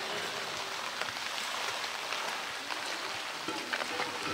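Steady rain, an even hiss with a few faint taps scattered through it.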